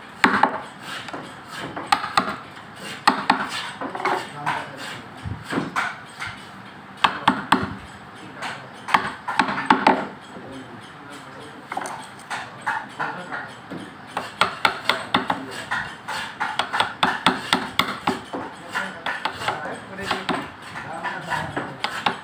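Wooden mallet striking a carving chisel into solid akash moni (acacia) wood: a run of sharp taps, in uneven bursts with short pauses at first, then quicker and more even, about three to four strikes a second, in the second half.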